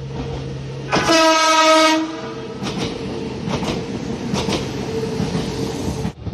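Nagano Electric Railway express train sounding one steady horn blast of about a second, starting about a second in. The train then runs on with its wheels clacking over rail joints.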